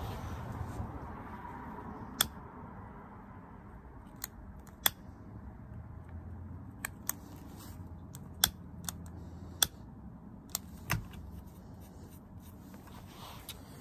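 About ten sharp, irregularly spaced clicks from a hand tool being worked at the frayed, chewed end of a retractable dog leash's tape.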